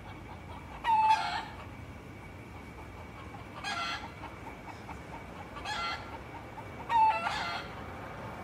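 Roosters crowing: four short crows, the first and last loud, two fainter ones in between.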